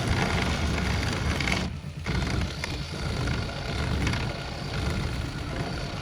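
An engine running steadily, a low rumble under a broad hiss, which dips briefly about two seconds in.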